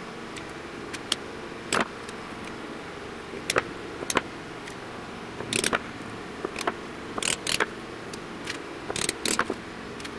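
Light hammer taps on a steel punch, metal on metal, crimping the tabs of a small geared stepper motor's casing back together; the taps come irregularly, some in quick pairs or clusters. A steady low hum runs underneath.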